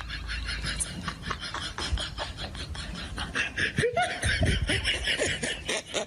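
People laughing in quick, breathy bursts, with a few short higher-pitched vocal sounds about four seconds in.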